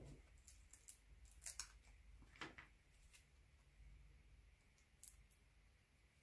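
Near silence with a few faint, brief clicks and rustles of small paper cut-outs being picked through by hand.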